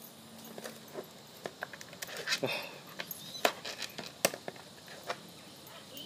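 Labrador chewing and tearing at a dry palm frond: irregular sharp crackles and snaps, a few every second, with a busier cluster about halfway through.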